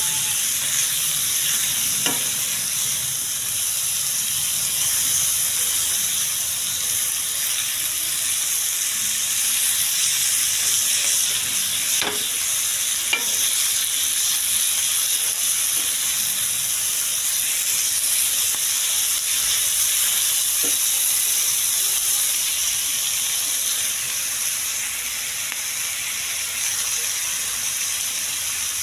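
Chicken pieces sizzling steadily in oil on a flat pan, with a few sharp clicks of a metal spoon striking the pan as the pieces are stirred.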